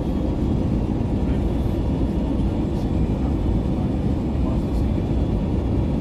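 Steady cabin roar of an Airbus A321neo airliner on approach, engine and airflow noise heard from a window seat beside the engine.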